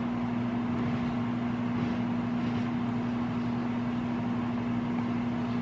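Steady low electrical hum.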